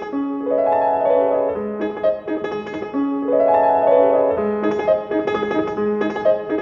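Instrumental music led by piano, playing a melody over sustained chords in phrases that repeat every few seconds.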